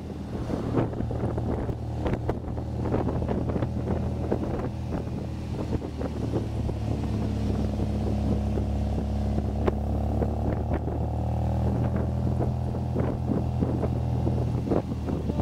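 MGA's four-cylinder engine running under way, heard from the open cockpit with wind buffeting the microphone. The engine note climbs slowly about halfway through, then holds.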